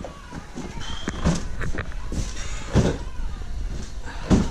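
Two-wheel hand truck loaded with a stack of cardboard boxes being hauled up carpeted stairs a step at a time. Heavy thumps come about every second and a half as the wheels drop onto each step, with scraping and rattling between them.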